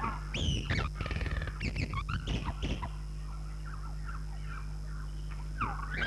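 Animal calls on the film's soundtrack: short chirping, squealing glides and a fast rattling call about a second in, then a lull until near the end, when the calls start again. A steady low hum runs under them.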